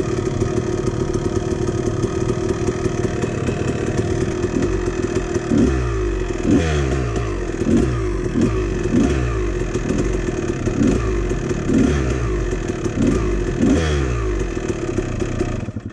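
Dirt bike engine heard from the rider's own bike while riding: it runs steadily for the first few seconds, then revs up over and over, roughly once a second, with some clatter. The sound cuts off suddenly near the end.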